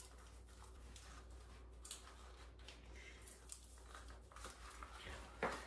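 Faint handling sounds, small clicks and rustles, as a beaded ankle strap on a high-heeled shoe is worked into place by hand.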